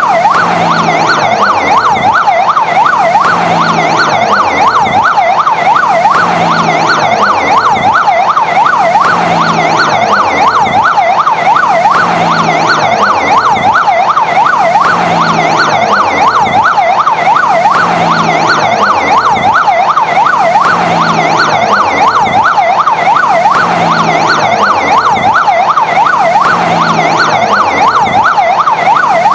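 Fire engine siren sounding continuously in a rapid yelp, its pitch sweeping up and down about three times a second.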